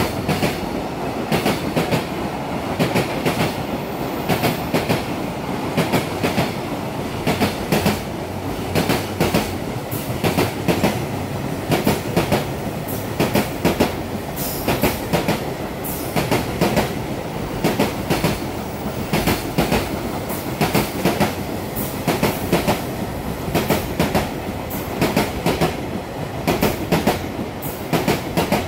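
Container flat wagons of a long freight train rolling past at speed: a steady rumble of steel wheels on rail, with a rhythmic clickety-clack as the wheelsets cross rail joints, the knocks coming in quick pairs over and over.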